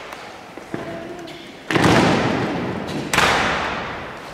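Two loud, sharp impacts of a military honour guard's rifle drill, the squad striking in unison, each ringing out with a long echo in the church. A short called command sounds faintly before the first.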